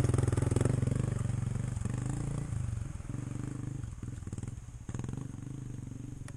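Dirt bike engine running with a pulsing beat that fades steadily, as of a bike moving away.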